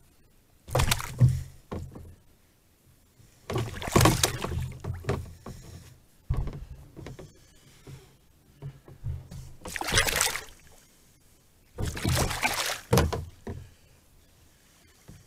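A speared carp being hauled out of the water beside a plastic kayak: five separate bursts of splashing and knocking, each about a second long, with quiet gaps between them.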